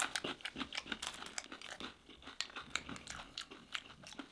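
Close-up crunching and chewing of crispy fried fish: many irregular, crisp crunches, one after another.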